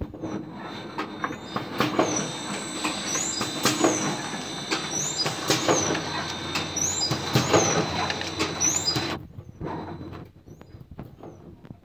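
Automatic zipper pouch packing machine running, a steady mechanical clatter with a regular knock about every two seconds and short high squeaks repeating between them. The sound drops away about nine seconds in.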